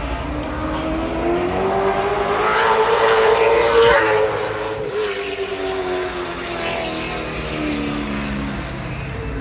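A race car passing close by on the track: the engine note swells and rises in pitch as it approaches, is loudest about four seconds in, then drops in pitch and fades as it moves away.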